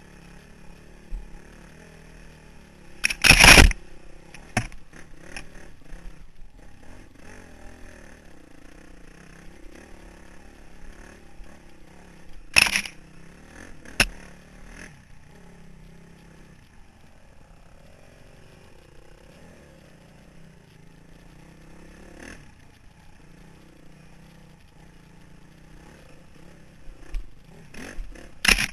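2003 Honda CRF450R's single-cylinder four-stroke engine running as the dirt bike is ridden over rough trail, its pitch rising and falling with the throttle. Loud sharp knocks and scrapes break in about three seconds in, twice around twelve to fourteen seconds, and again at the end.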